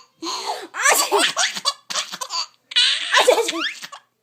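Baby laughing hard in repeated bursts of high-pitched belly laughs, with short breaths between them.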